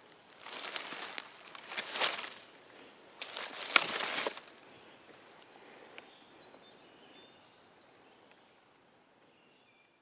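Dry leaf litter and bark rustling and crunching as a hand searches through it, in three bursts over the first four seconds or so. Then it falls quiet, with faint high bird calls.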